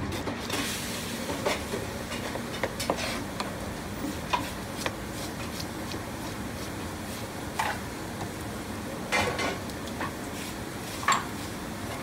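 Kitchen knife scraping the slime off the skin of a split eel on a cutting board, in short irregular strokes and clicks over a steady background noise.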